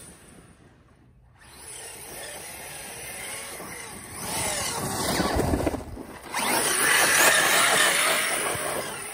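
ARRMA Outcast 6S BLX RC truck's brushless electric motor whining, its pitch rising and falling as the throttle is worked. It is faint for the first second or so, grows louder from about four seconds in, dips briefly around six seconds, then runs at its loudest.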